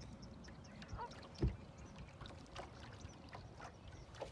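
Small waves lapping and ticking against the hull of a small boat on choppy water, with one dull low knock about a second and a half in.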